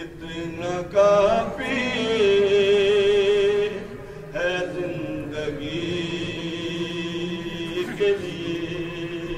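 A man chanting a devotional poem in Punjabi, unaccompanied, in two long phrases of drawn-out, wavering held notes with a short break near the middle.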